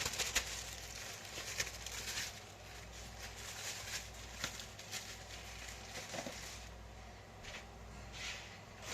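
Faint rustling and light scattered taps of food and utensils being handled on a kitchen counter, over a low steady hum.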